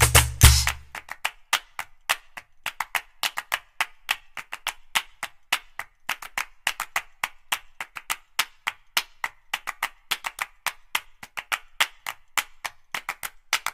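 Felt-tip marker scratching on paper in quick short strokes, several a second, as an area is coloured in. Background music cuts out about a second in.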